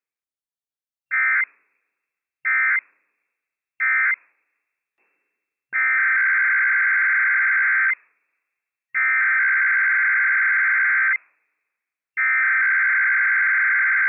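NOAA Weather Radio EAS/SAME digital data bursts, a harsh buzzing warble of two alternating tones. First come three short end-of-message bursts about a second apart, closing one Required Weekly Test. Then three longer header bursts of about two seconds each open the next test.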